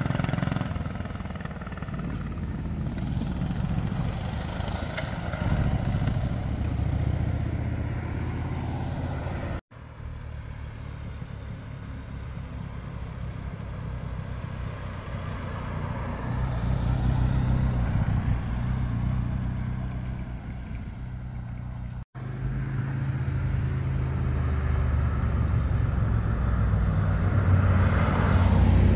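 Motorcycles and cars driving past through a hairpin bend, their engine notes swelling and fading as each goes by. The sound cuts out abruptly twice, and it is loudest near the end as a car passes close.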